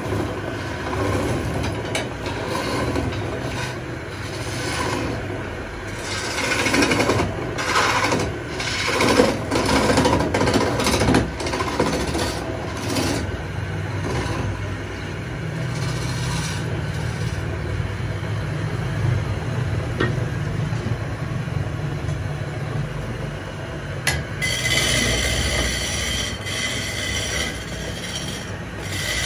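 Belt-driven wood lathe running with a steady motor hum while a hand chisel scrapes and cuts the spinning wooden cot leg, with the heaviest cutting between about 6 and 13 seconds in. A high squeal sets in near the end.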